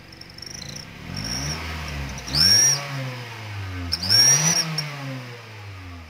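Honda Freed's engine revved in short blips, with the clip-on turbo whistler on its tailpipe giving a high whistle that rises and falls with each rev. The two strongest revs and whistles come about two and a half and four seconds in, after a fainter one near the start.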